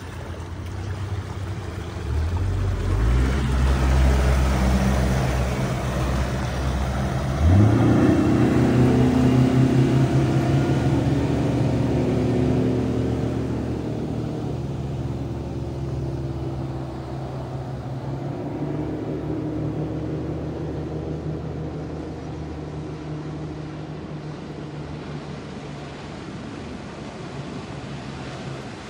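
Mercury 150 four-stroke outboard motor accelerating hard: its pitch climbs about two seconds in and again about seven seconds in. It then runs at speed, growing fainter as the boat moves away.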